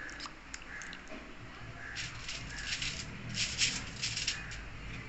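Hands mixing chicken pieces in a wet spice marinade: a run of short, soft squishing and rustling sounds, busiest around the middle.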